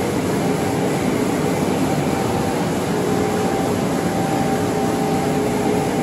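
Combine harvester running steadily, a loud even machine noise with a faint steady whine.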